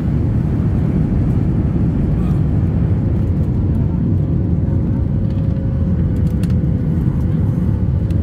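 Cabin noise of a Boeing 737 MAX 8 in its initial climb just after takeoff: a loud, steady rumble from the CFM LEAP-1B engines at climb power and the rushing air, with a faint steady hum joining in about five seconds in.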